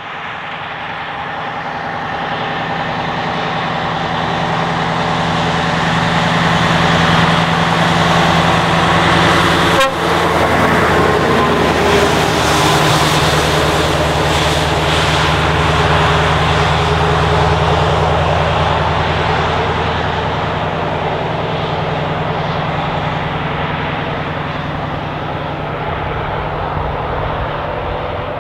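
Scania T142E 420's straight-piped V8 diesel driving past: the exhaust note grows louder as the truck approaches, drops in pitch as it goes by about ten seconds in, then slowly fades as it pulls away.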